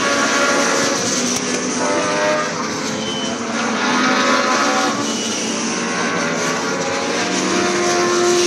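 A pack of Legends race cars running through a corner, several motorcycle-derived engines at once, their pitches rising and falling as the cars pass one after another.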